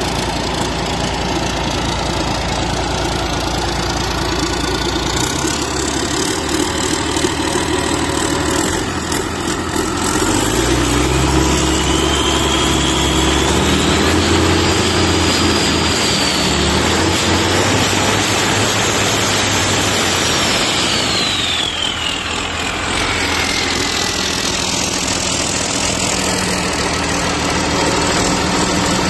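MAN straight-six diesel engine running unmounted with its turbo outlet open. It idles, then is revved up about ten seconds in with a rising turbocharger whistle, is held at higher revs, and drops back to idle after about twenty seconds as the whistle falls away.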